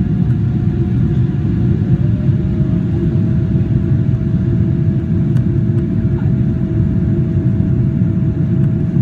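Steady cabin rumble of a Boeing 777-300ER, its GE90-115B engines and the airflow heard from inside the passenger cabin, with a thin steady tone above the rumble that drops slightly in pitch about two seconds in.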